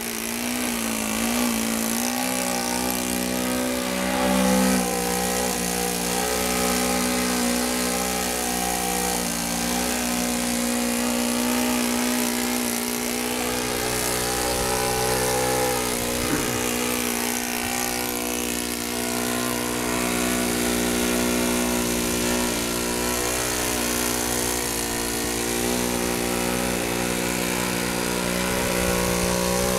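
Radio-controlled aerobatic airplane hovering nose-up on its propeller in a torque roll. The engine and propeller drone steadily, wavering a little in pitch as the throttle is worked to hold the hover.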